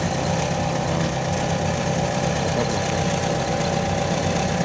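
Engine of a small tracked rice-hauling tractor idling steadily.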